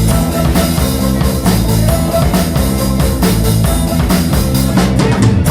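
Rock band playing live: a drum kit pounding a steady beat under loud guitars and bass, with a few heavy closing hits near the end.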